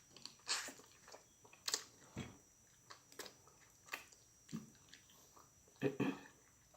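Close-miked chewing with wet mouth smacks and clicks of someone eating, irregular and a few per second, the loudest pair near the end.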